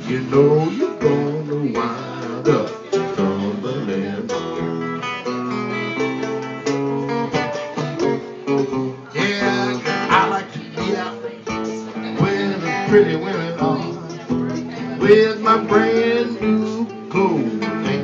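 Live Stratocaster-style electric guitar playing a lead passage, many quick notes with pitches bending up and down.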